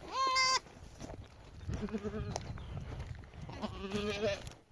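Sheep bleating: one short, loud, high bleat right at the start, then two lower, wavering bleats about two and four seconds in.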